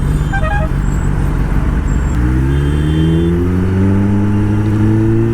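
Kawasaki ZX10R's inline-four engine under way. It accelerates from about two seconds in, rising steadily in pitch over a steady rush of road noise.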